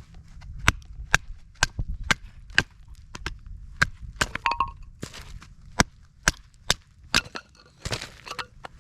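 A knife being driven through wood with a baton: a run of sharp wooden knocks, irregular and about one or two a second. The knife is a Bark River Puukko with a 3 mm CPM 3V steel blade.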